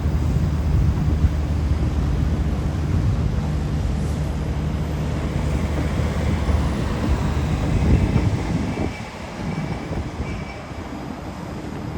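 A vehicle running with a steady low hum, which drops away and quietens about nine seconds in.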